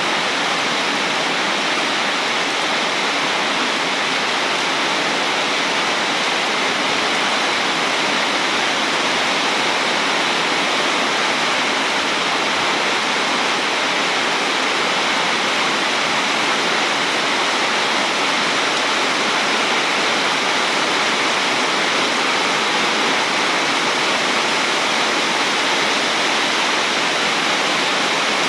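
Heavy rain pouring down steadily, an even hiss with no breaks and no thunder.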